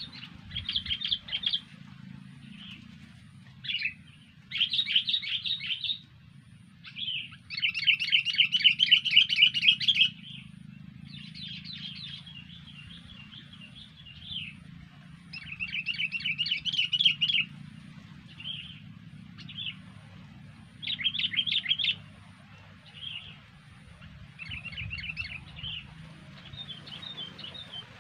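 Sooty-headed bulbuls (kutilang) calling: repeated bursts of fast chattering notes, each one to three seconds long, with short pauses between.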